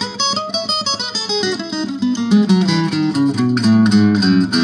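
1976 Yamaha FG-251 steel-string acoustic guitar picked with a flatpick, played through its Guyatone GP-1 passive pickup into a small Roland Cube amp with a little reverb and delay. It plays a quick run of single notes stepping down in pitch, then fuller chords near the end.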